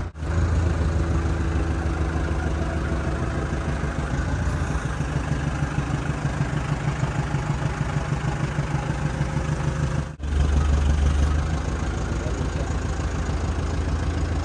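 Telehandler's diesel engine running steadily at low revs, with a brief cut in the sound about ten seconds in.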